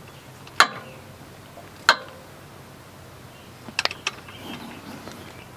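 Sharp metallic clicks from a 3/8-inch ratchet and socket on a transmission drain plug as the plug is tightened down. There is one click about half a second in, another near two seconds, and a short cluster of clicks near four seconds.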